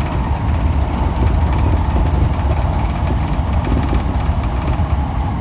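Electric commuter train running along the line, heard from inside the front car: a steady low rumble of wheels on rail with a faint steady whine.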